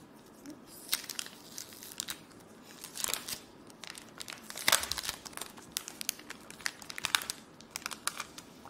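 Clear plastic sleeve crinkling as hands open it and pull out the sticker sheets inside. Sharp irregular crackles run throughout, with the loudest burst about five seconds in.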